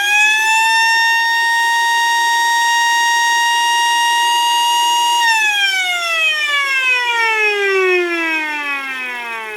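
W. Vershoven explosion-proof electric siren, a ship's alarm with a small rotor inside, sounding one steady high wail that reaches full pitch about a second in. About five seconds in, the wail starts falling steadily in pitch as the rotor spins down.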